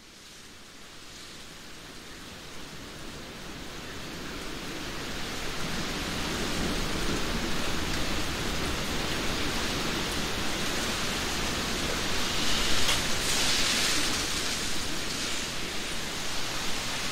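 Heavy rain falling in a spruce forest, a steady rush of rain that fades in and grows louder over the first several seconds, then holds.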